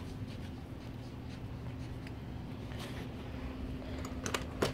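A phone's microphone rubbing and scraping against clothing as it is carried, over a steady low hum, with a few sharp clicks near the end.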